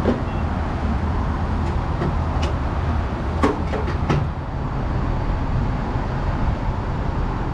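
Gas pump filling a pickup truck: a steady low rumble and rush, with a few light clicks in the first half.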